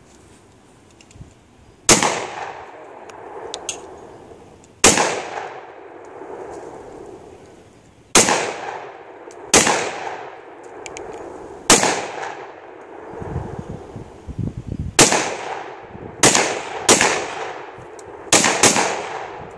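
Glock 29 10mm pistol firing Underwood full-power loads: about ten shots, each followed by an echoing tail. The shots come a few seconds apart at first and quicken near the end.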